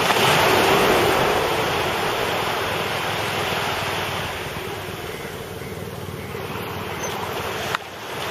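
Sea waves breaking and washing in over the shallows, with wind on the microphone. The sound is loudest as a wave breaks at the start, then eases off.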